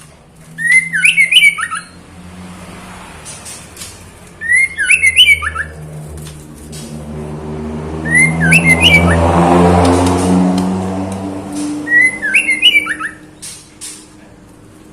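Female white-rumped shama (murai batu) giving short, harsh call phrases four times, a few seconds apart: a female in breeding condition calling for a male. A passing vehicle's engine swells and fades underneath, loudest around the middle.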